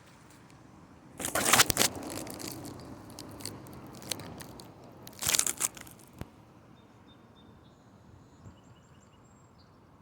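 Thunder: two sharp crackling claps, the first about a second in trailing off in a rumble, the second about five seconds in.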